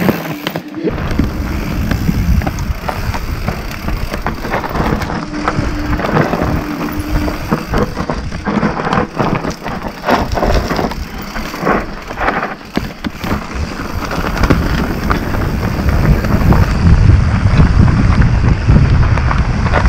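Mountain bike riding down a rocky dirt trail: tyres crunching over loose stones and leaves and the bike rattling over bumps, with a low rumble that grows louder over the last few seconds.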